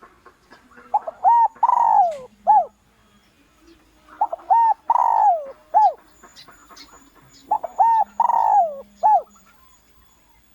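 Spotted dove (Streptopelia chinensis) giving its territorial cooing call, used as a decoy lure. The call comes three times, evenly spaced, and each phrase is two short coos, a longer coo that falls in pitch, then a short closing coo.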